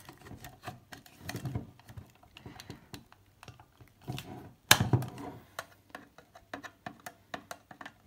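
Flat-head screwdriver scraping and clicking against a hard plastic bottle security cap as it is prised at the cap's hinges, with irregular small clicks throughout and one sharp, louder knock about halfway through.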